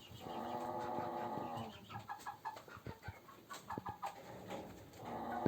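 Sick hen wheezing and rasping as she breathes, a sign of the respiratory illness (bronchitis or a cold) the owner is treating. Two drawn-out, pitched rasping sounds, one near the start and one near the end, with short notes between them.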